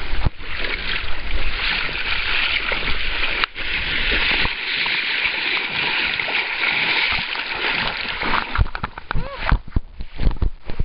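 Water splashing and sloshing around a kayak at the landing, a steady hiss, with a few sharp knocks in the last couple of seconds.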